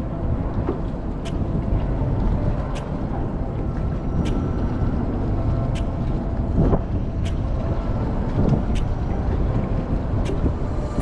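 Boat motor running steadily under way, with wind buffeting the microphone and scattered sharp clicks.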